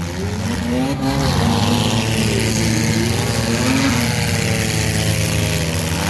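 Engines of several bump-and-run race cars running hard on a dirt track, their pitch rising and falling as the drivers accelerate and ease off, over a steadier engine note.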